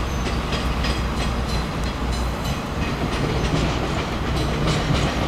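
A train pulling slowly out of a railway siding, its wheels clicking irregularly over rail joints and points above a steady low hum.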